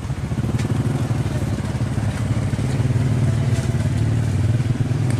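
A small engine running steadily nearby, a low hum with a fast, even pulse.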